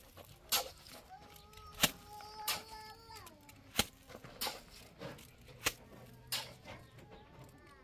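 Short, sharp scraping strokes of a hand tool working wet cement, repeating roughly once a second. A faint high call rises and holds between about one and three seconds in, then drops in pitch.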